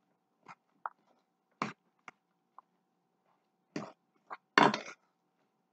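Raw ground-beef meatloaf mixture being stirred with a utensil in a stainless steel bowl: scattered short squelches and scrapes, the loudest a little over four seconds in.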